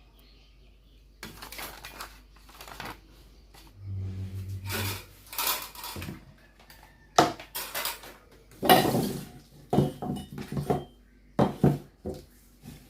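Parts of a stand fan being handled and fitted together during assembly: irregular clinks and clatters of hard plastic and metal pieces knocking against each other.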